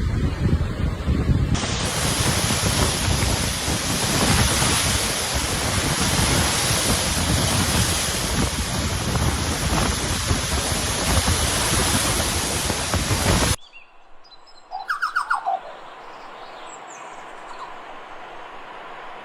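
Loud, steady rushing of storm rain and wind that starts suddenly and cuts off abruptly near the end, followed by a few short bird chirps over a quieter background.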